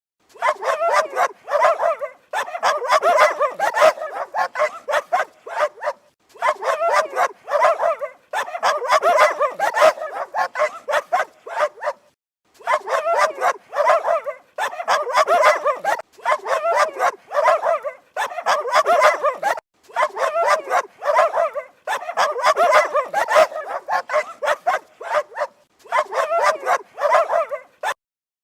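Dog barking rapidly and continuously, in runs of quick barks a few seconds long broken by short pauses.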